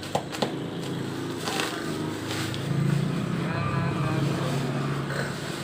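A steady low engine hum that swells about three seconds in, with a few sharp clicks near the start.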